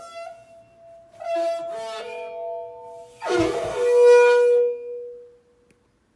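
Haier HW80-B14979 washing machine squeaking as its drum turns: a few drawn-out squeals, the loudest about three seconds in along with a dull knock. The squeak is a fault that a repairman said may not go away with further washes.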